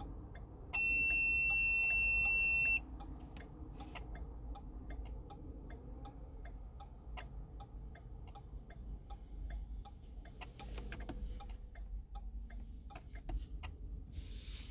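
Steady ticking, about two or three clicks a second, with a loud electronic beep held for about two seconds about a second in. There are brief rustles near the end.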